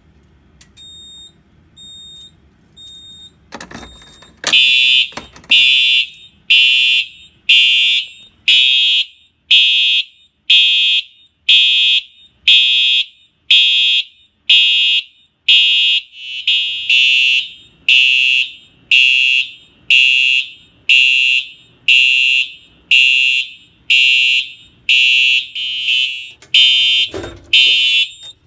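Simplex 4906-9127 TrueAlert fire alarm horn sounding in march-time code, one blast a second, with no pause between rounds: the system is in alarm after the pull station was pulled. It starts about four and a half seconds in, after a few faint short beeps and a clunk.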